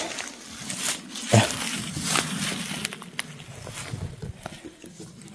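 Footsteps and legs swishing and crackling through tall, dense grass, with a brief low vocal sound about a second and a half in.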